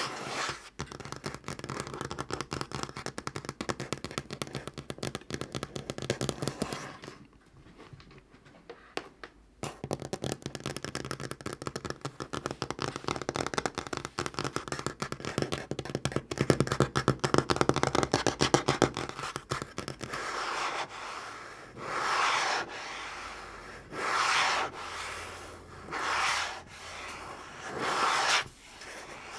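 Natural fingernails tapping very fast on a tabletop, a dense run of clicks with a brief quieter lull about a quarter of the way in. In the last third the tapping gives way to slower sweeping strokes across the surface, about one every two seconds.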